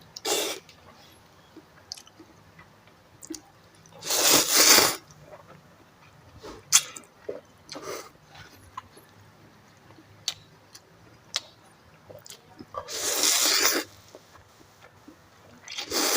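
Person slurping instant noodles: two long, loud slurps about four seconds in and again near the end, with shorter slurps and small mouth clicks between.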